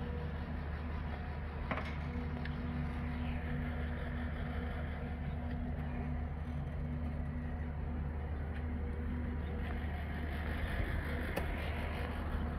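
Steady low mechanical hum with a constant pitch, with a couple of faint clicks about two seconds in and near the end.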